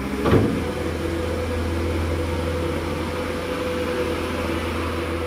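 New Holland skid steer's diesel engine running steadily under way, a low hum with a higher steady whine over it, with one sharp knock about half a second in.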